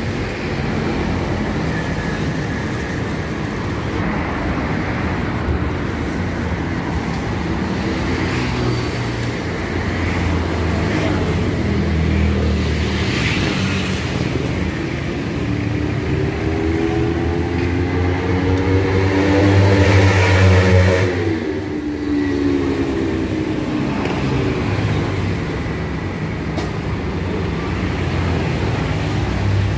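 Steady road traffic rumble, with one vehicle passing close about two-thirds of the way through, its engine note rising and then falling away as it goes by.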